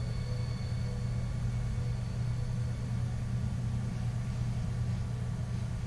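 Steady low background hum with no changes or distinct events.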